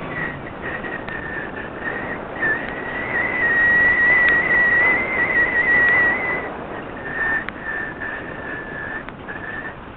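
Air rushing past a model rocket's onboard camera as it drifts down under parachute, with a steady whistling tone that wavers slightly in pitch. The whistle is loudest in the middle seconds, then breaks into shorter pieces near the end, with a few sharp clicks.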